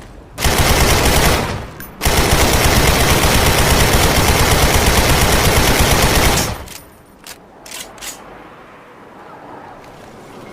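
AK-74U carbine firing on full automatic: a short burst of about a second, then after a brief gap a long continuous burst of about four and a half seconds, followed by a few separate sharp cracks.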